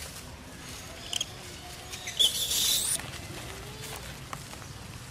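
Monkeys scuffling and scampering over dry leaf litter. The loudest part is a burst of rustling from a little past two seconds in to about three seconds, opening with a short high squeak. Faint short monkey calls come now and then.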